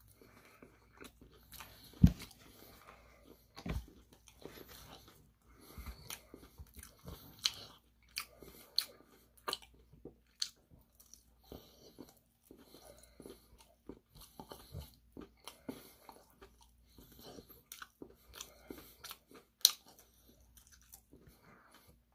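Close-miked biting and chewing of crispy Korean fried chicken: many short crunches and crackles of the fried coating, with a few louder crunches as pieces are bitten off, about two seconds in and near the end.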